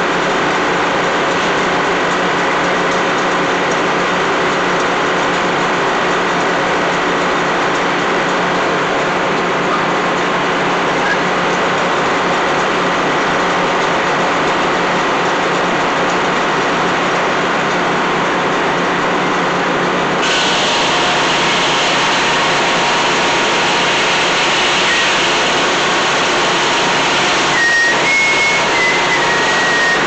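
Old Meadows circular sawmill running: the big blade spins with a steady mechanical drone. About two-thirds of the way in, the blade bites into the log and a harsher, higher cutting noise joins in, with a high whine near the end as the blade works through the cut.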